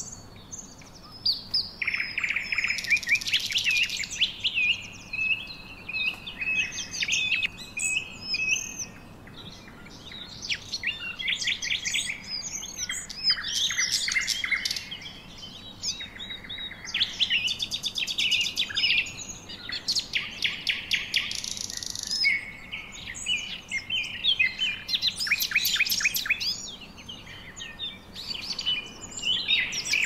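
Many birds chirping and calling at once: a busy chorus of quick high chirps, whistled sweeps and rapid trills that overlap and keep going.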